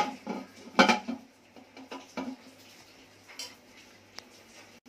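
Metal pressure cooker lid being fitted and closed onto the pot, clanking and scraping against the rim: several clanks, the loudest about a second in, then a few faint clicks.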